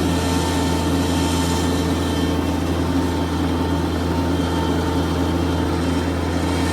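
Bobcat MT100 mini skid steer's engine running at a steady speed: an even, low drone with no revving.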